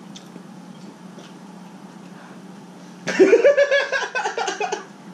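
Steady low hum with faint clicks of chopsticks and eating utensils; about three seconds in, a person's voice breaks in loudly for about a second and a half.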